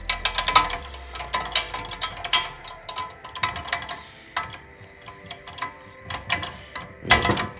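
Hand tools working a bolt on a steel mower bracket: a run of small, irregular metallic clicks and clinks as a hex key is turned on the bolt head while a box wrench holds the nut. A louder clatter comes about seven seconds in.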